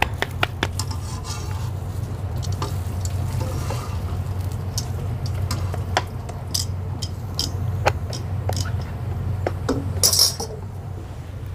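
Scattered clinks, taps and scrapes of steel cookware, a metal turner on a griddle and steel plates and bowls being handled, with a louder clatter about ten seconds in, over a steady low hum.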